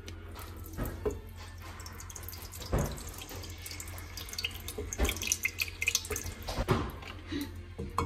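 Kitchen tap running into a sink, with water splashing and light clatter growing busier in the second half.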